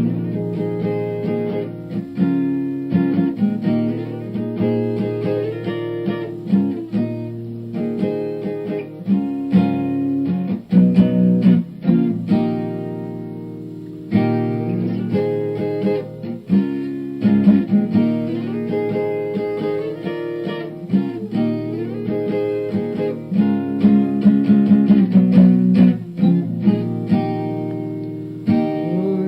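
Music: an acoustic guitar strumming chords in an instrumental intro, starting suddenly.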